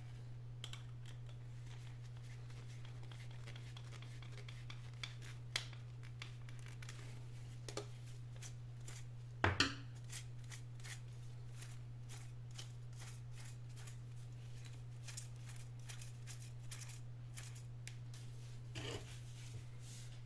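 Light clicks and taps of small plastic parts being handled and fitted by hand, with a louder double knock about nine and a half seconds in, over a steady low hum.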